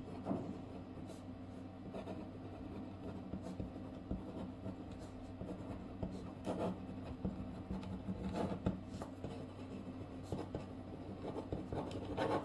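Pen writing on a sheet of paper, a run of short, irregular scratching strokes as words are written out.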